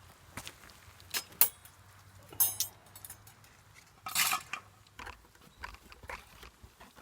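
Metal cookware and utensils clinking and knocking during camp cooking: a few sharp clinks with a brief ring, and a short rustle a little past the middle.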